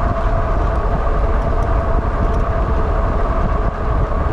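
Wind buffeting the microphone and road noise from a Wallke H9 AWD e-bike riding at speed on a rain-wet road: a steady low rumble with a faint steady whine running through it.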